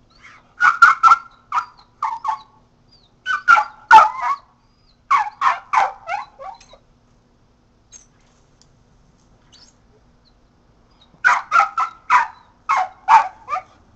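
Kelpie-mix dog barking in quick runs of short barks, two to five at a time. It goes quiet for about four seconds in the middle, then gives a last run of barks near the end.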